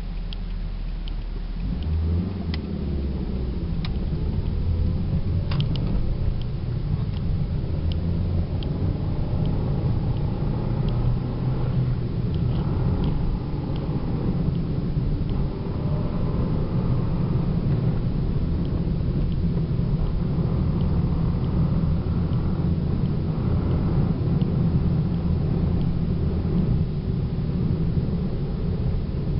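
Toyota Celica with a manual gearbox driving and accelerating through the gears, heard from inside the cabin, with the engine pitch rising several times and faint scattered ticks. A chattering noise from the transmission grows louder in the higher gears, which the owner suspects is a failing throw-out bearing.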